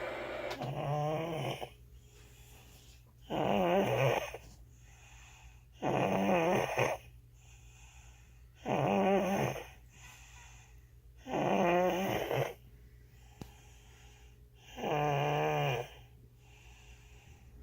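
Sleeping baby snoring: six snores, each about a second long and wavering in pitch, coming every two and a half to three seconds, with quiet breaths between.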